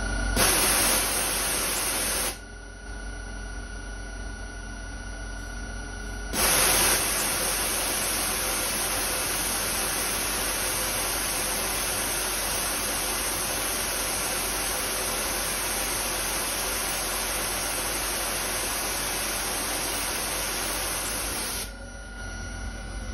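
CNC milling machine running, its spindle turning nylon stock against a lathe-style turning tool. A loud steady hiss switches on twice: briefly just after the start, then from about six seconds in until near the end, with a quieter steady machine hum between.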